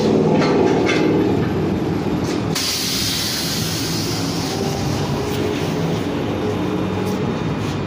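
Compressed air hissing out, starting suddenly about two and a half seconds in and easing off, over a steady machine hum.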